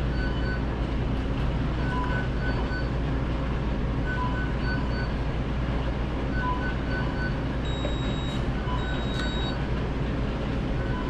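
Fast-food restaurant counter ambience: a steady low hum of kitchen equipment and ventilation. Over it, a pattern of short electronic beeps repeats about every two seconds, and two longer, higher beeps come about eight and nine seconds in.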